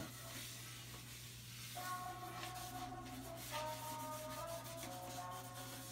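A cotton pad loaded with shellac rubbing over the wooden bowl of a Persian tar, making faint, soft scratchy strokes. Quiet held musical tones come in about two seconds in.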